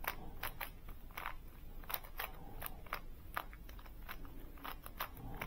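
GAN smart 3x3 speedcube being scrambled: its plastic layers click and scrape as they are turned one move after another, about three short clicks a second at an uneven pace.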